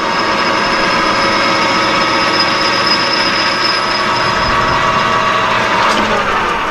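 Metal lathe running and taking light cuts on a half-inch aluminum plate, a steady mechanical whine of several tones over cutting noise. Near the end the whine drops in pitch as the lathe starts to slow.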